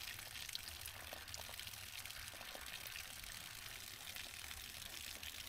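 Faint trickle of water from a thin tube at a rainwater IBC tote, falling and splashing onto the soil below.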